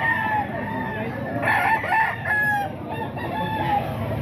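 Several gamecock roosters crowing one after another, their long held crows overlapping, with fresh crows about a second and a half in and again near the end.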